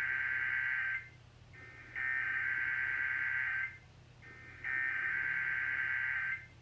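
Emergency Alert System digital data tones (SAME header) for a weekly test, heard over the radio: three even bursts of high two-tone data, each under two seconds, with about a second's pause between them.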